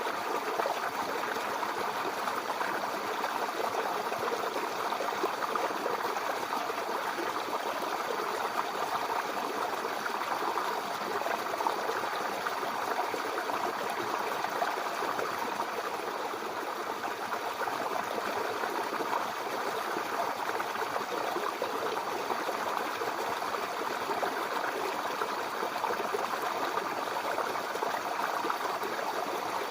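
Mountain river flowing steadily over rocks, a constant rushing and babbling of water.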